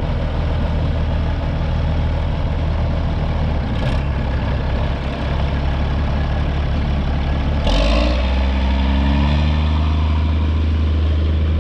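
Farm tractor engine running steadily at idle, then revving up about eight seconds in as the tractor pulls away.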